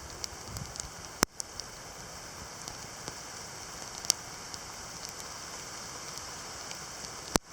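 Steady rain from a heavy shower, a hiss dotted with scattered sharp drop ticks. Two louder clicks, each with a momentary dropout, come about a second in and near the end.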